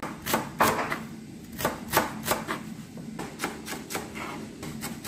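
Chef's knife chopping fresh mint leaves on a cutting board: a sharp knock with each stroke, in irregular runs of about two or three a second.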